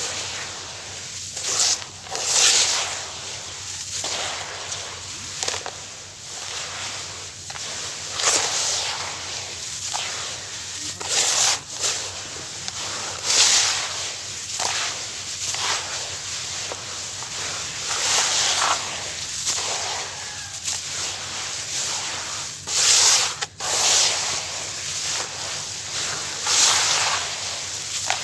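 Crunchy sand-cement lumps being smashed and mashed in water into a paste: irregular gritty crunching and squelching, some crunches sharper and louder than others.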